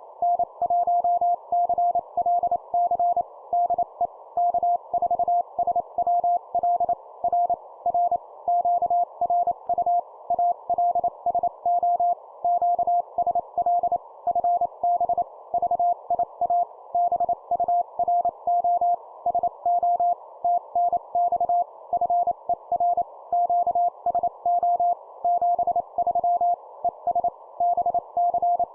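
Morse code (CW) sent at 25 words per minute: a single steady beep tone keyed on and off in dots and dashes, over a constant band of hiss.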